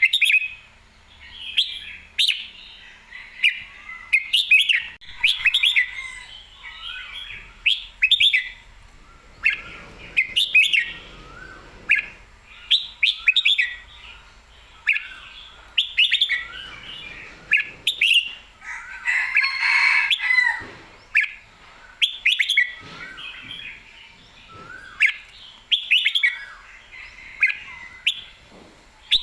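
Red-whiskered bulbul singing lively, short whistled phrases over and over, with a phrase every second or so and a denser burst of song about twenty seconds in.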